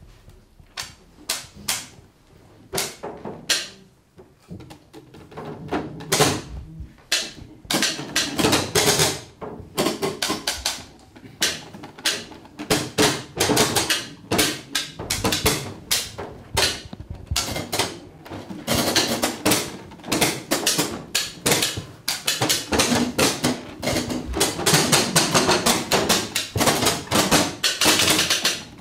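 Irregular clattering knocks and clacks of hand-played percussion, sparse at first, then growing dense and louder from about eight seconds in.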